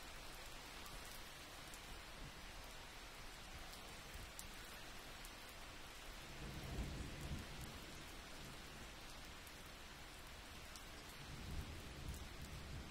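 Rain falling steadily on woodland foliage, faint, with scattered drop ticks. Two brief low rumbles swell up, about seven seconds in and again near the end.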